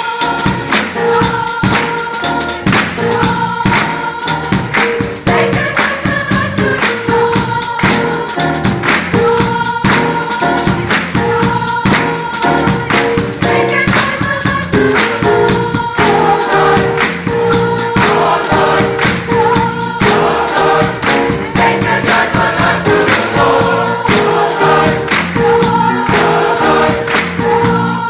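Gospel choir singing with a live band behind it, drums keeping a steady beat.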